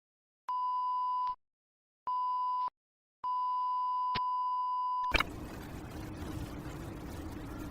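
Three electronic beeps at one steady high pitch, the third the longest. About five seconds in they give way to a steady hiss with a low hum.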